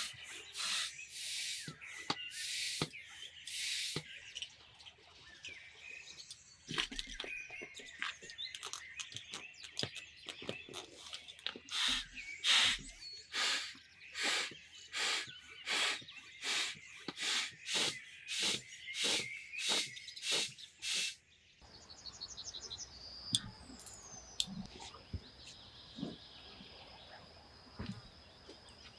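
Repeated rasping strokes, about one to two a second, as of something being scraped or filed by hand. They stop abruptly, and birds chirp and trill over a faint background hiss.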